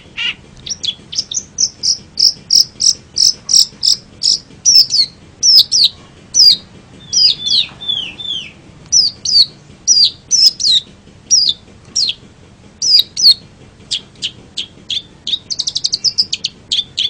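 Young long-tailed shrike singing: a rapid series of short, sharp, high notes, many of them sliding down in pitch, with a fast rattling trill near the end.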